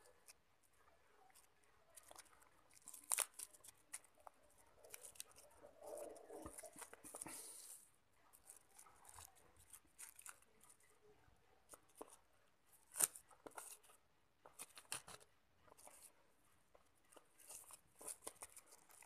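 Cling film being peeled and unrolled off a boiled chicken sausage by hand: faint, scattered crinkling and crackling of the plastic wrap, with a few sharper clicks, the loudest about a third of the way in and again about two-thirds in.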